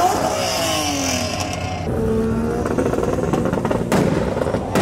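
Car engine revving and falling in pitch as it comes off the throttle, then after an abrupt cut a car engine running at a steady low pitch, with another sharp break near the end.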